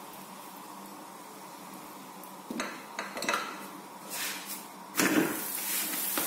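A cooking utensil clinks and knocks against the pan a few times while a stuffed paratha fries in ghee, then the ghee sizzles louder about five seconds in.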